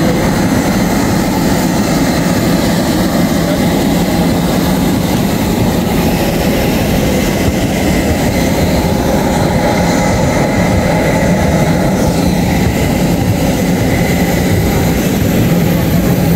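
Steady aircraft noise of an airliner before takeoff: a constant low hum and rush with a faint high whine over it.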